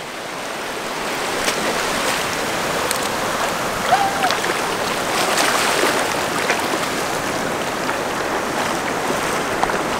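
Shallow surf washing in over wet sand close by, a steady rush of water that swells over the first second and then holds.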